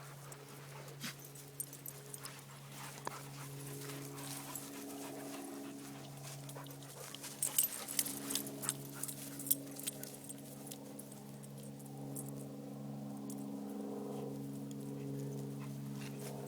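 Dogs panting and moving about, with scattered sharp clicks and taps, most of them about halfway through.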